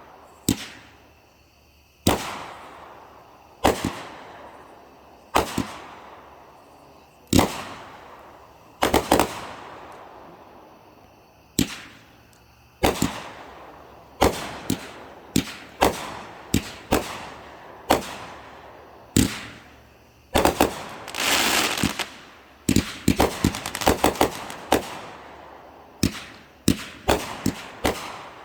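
Consumer fireworks going off: a string of sharp bangs, each trailing off in a long echo, at first about every one and a half to two seconds. After about twenty seconds they come faster, with a longer hissing crackle and then quick clusters of bangs near the end.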